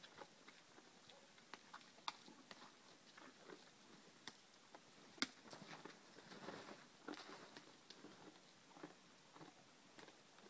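Cow moose and calf browsing willows: faint, irregular crunching and clicking as they chew the twigs, with a sharper click just after five seconds in and a thicker run of crunching around six to seven seconds.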